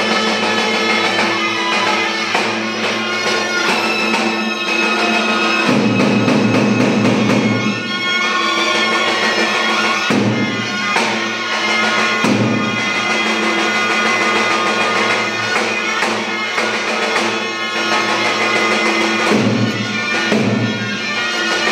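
Live folk dance music: a reed wind instrument playing the melody over a steady drone, with a drum keeping the beat.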